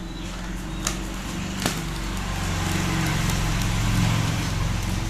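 A motor vehicle's engine hum that swells and then eases, as if passing by, with two small sharp clicks about one and a half seconds in.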